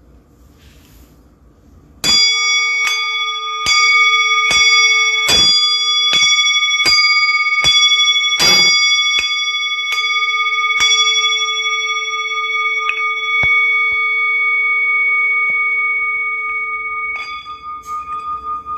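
Brass singing bowl held on the palm and struck with a mallet about a dozen times, roughly once every 0.8 s, starting about two seconds in. Its bright ring of several steady pitches builds up and is then left to ring and slowly fade. Near the end the mallet is drawn around the rim, and the tone swells again with a pulsing wobble.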